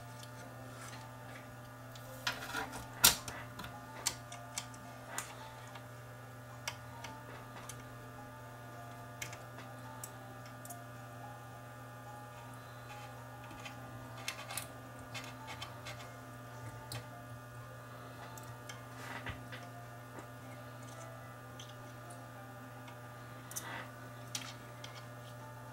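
Irregular small clicks and taps of a dental pick and fingers working a new drive belt around the pulleys inside a cassette deck's transport, over a steady low hum. The sharpest click comes about three seconds in.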